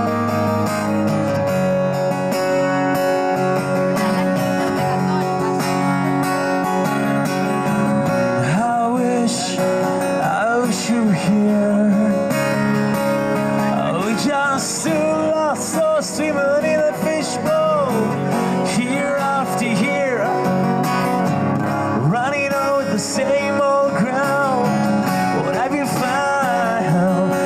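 Live music: an acoustic guitar strummed in steady chords. About eight seconds in a melody joins it, sliding between notes with vibrato.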